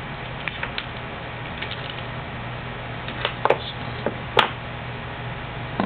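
A few short, sharp clicks and taps over a steady low hum, the loudest about four and a half seconds in: small plastic and metal parts being handled while fog-light wires are joined into a connector.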